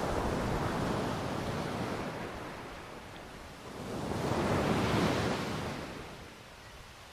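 Ocean waves breaking and washing in: two swells of surf, the second, about five seconds in, the louder, fading near the end. Some wind rumble on the microphone at the start.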